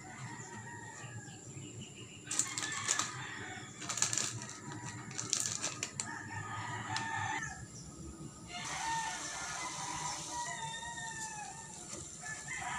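Roosters crowing and chickens clucking over and over, with a plastic bag crinkling as it is handled from about two to six seconds in.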